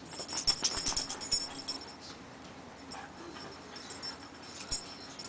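Two puppies play-fighting on a bed: scuffling and rustling on the bedding, with a flurry of quick sharp clicks in the first two seconds and quieter scuffling after, one more click near the end.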